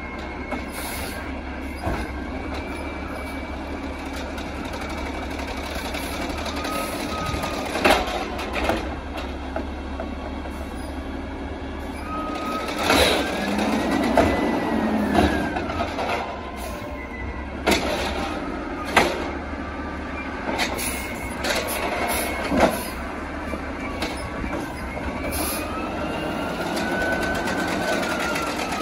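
CNG Peterbilt 320 garbage truck with an Amrep HX-450 automated side loader running while it collects carts. Its hydraulics whine up and then down in pitch as the arm lifts and lowers, and several sharp bangs come from carts being dumped and knocked against the hopper.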